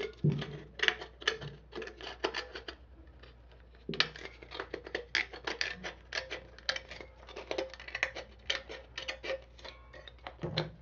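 Small scissors snipping through the thin aluminium top of a pop can, cutting the inside of the top out: a quick, irregular run of crisp clicks, several a second, pausing briefly about three seconds in.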